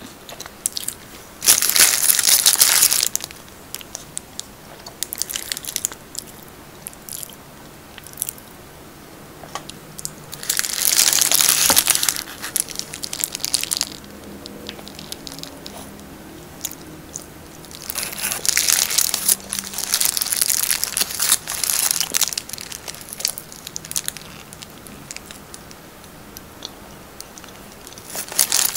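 Close-miked eating of a steamed siopao asado bun: the paper wrapper round it crinkles loudly in four bursts, with soft chewing and mouth sounds in between.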